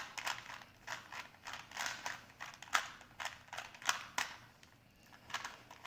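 Plastic Rubik's Cube being turned by hand: quick, irregular clicks of the layers snapping round, about two or three a second, during the last moves of a speed solve.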